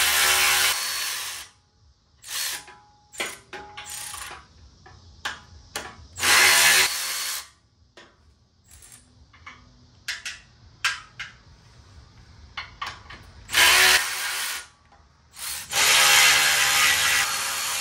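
Cordless electric ratchet running in four bursts of a second or two, spinning off already-loosened 14 mm bolts, with short metallic clicks between the bursts.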